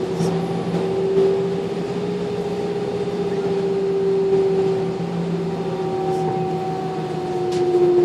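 Airliner cabin noise: the jet engines running at idle before takeoff, a steady whine that drifts slightly in pitch.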